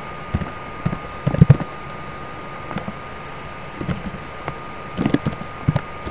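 Computer keyboard typing: irregular clicking keystrokes, singly and in small quick bursts, a few per second.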